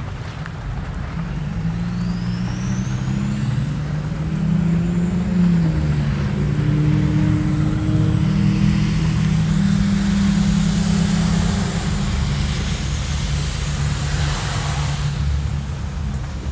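A motor vehicle's engine running with a steady low hum whose pitch shifts up and down. A rushing hiss swells about halfway through and fades near the end.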